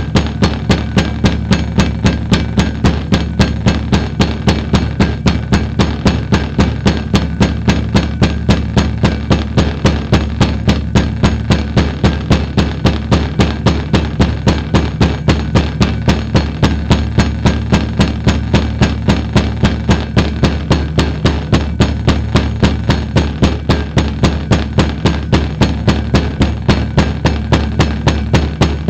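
Loudspeaker playing a steady low-pitched hum of a few blended tones, with sharp, evenly spaced clicks about three times a second, as used to drive a cymatics pattern.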